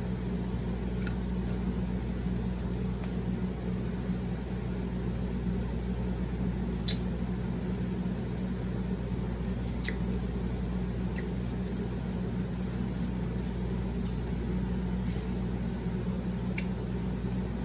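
A person chewing raw vegetables, giving a few scattered crunches and mouth clicks over a steady low hum.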